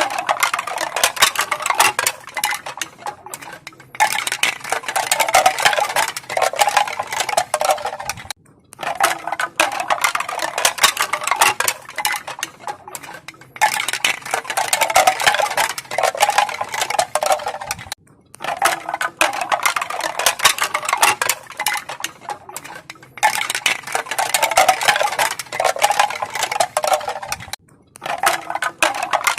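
Crisp clacking of bamboo pieces knocking together: dense, rapid clicks in stretches of four to five seconds, broken by short pauses.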